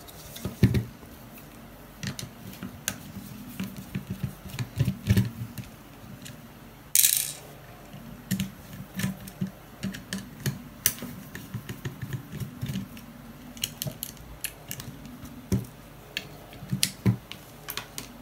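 Irregular clicks, taps and light knocks of small hard parts and tools being handled during a repair, with a short hiss-like rustle about seven seconds in.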